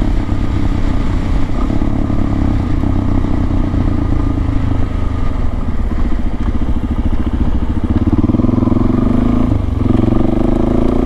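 Suzuki DR-Z400S single-cylinder four-stroke engine with an FMF PowerCore slip-on exhaust, running steadily while the bike is ridden. Its note climbs from about eight seconds in and drops briefly near the end as the revs fall.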